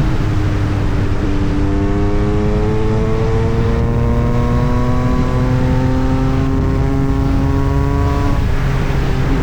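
Yamaha MT-09 SP's inline-three engine through an Austin Racing aftermarket exhaust, pulling steadily with the revs climbing slowly for several seconds. The revs fall away about eight seconds in.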